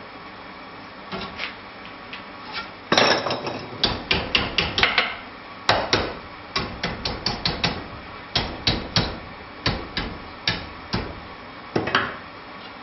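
Hand hammer striking the red-hot end of a nail set in a nail header, upsetting and forming the nail's head. A couple of light taps about a second in, then from about three seconds a quick run of hard blows, a few a second, broken by short pauses, ending near the end.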